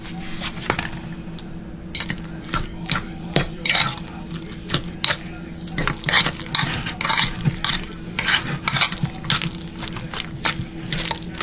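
Fork stirring and folding chunky guacamole in a bowl: irregular wet squishing and scraping, with the fork clicking against the bowl, getting busier about two seconds in.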